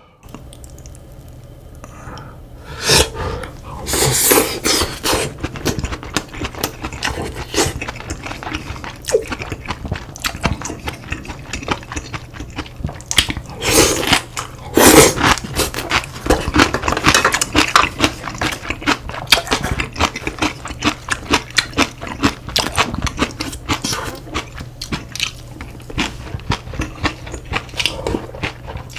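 Close-up eating sounds: a person chewing and crunching food with a dense run of quick wet clicks and crackles, louder around three to five seconds in and again near the middle. A low steady hum sits underneath.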